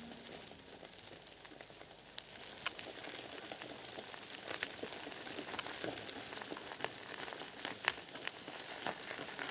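Light rain falling outdoors: a faint steady hiss with scattered sharp ticks of drops hitting surfaces.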